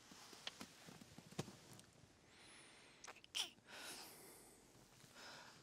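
Near silence: faint breathing and soft rustles with small clicks. A short falling sound about three and a half seconds in is the loudest moment.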